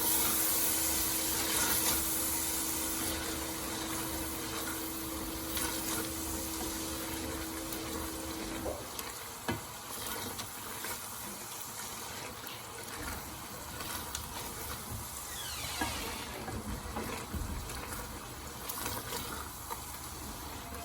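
Onion, spice and yogurt masala sizzling in hot oil in a pan as it is stirred, with a few short knocks. A steady hum runs under it and stops about nine seconds in.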